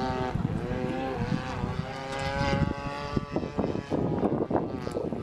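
Radio-controlled model airplane's engine and propeller running in flight, a droning whine whose pitch drifts slightly up and down.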